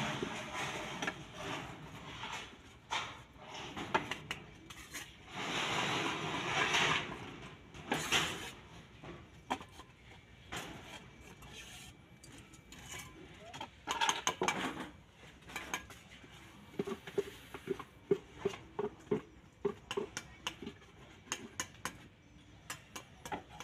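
Steel trowel scraping and spreading cement mortar over the back of a ceramic tile, with clinks of the blade against the tile. In the second half, a run of sharp taps and clicks as the mortar is worked and the tile is set down.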